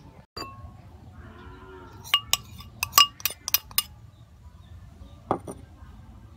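Metal spoon clinking against a ceramic bowl while working flour: a quick run of sharp, ringing clinks between two and four seconds in, with single clinks about half a second in and near the end.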